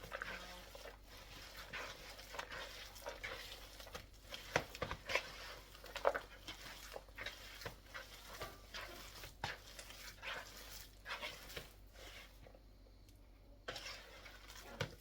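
Ground chicken patty mixture being mixed by hand in a bowl: an irregular run of soft squishes and clicks, with a short pause near the end.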